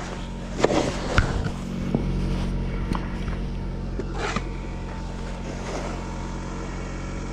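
A car engine idling steadily, with a few scrapes and knocks of snow shovels on packed snow and ice: the loudest about a second in and again around four seconds in.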